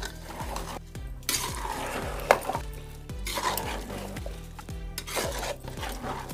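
Metal slotted spoon stirring soaked raw rice into fried vegetables in a metal pot, scraping and clinking against the pot's sides and bottom in uneven strokes, with one sharp knock a little over two seconds in.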